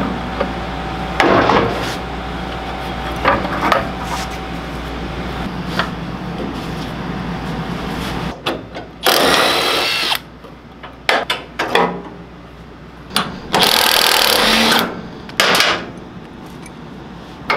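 Cordless power tool spinning a socket on a go-kart nut in short bursts of about a second each, with metal clinks and knocks of tools and parts in between.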